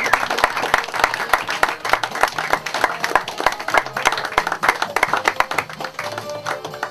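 Audience applauding, many hands clapping, fading toward the end as music begins faintly.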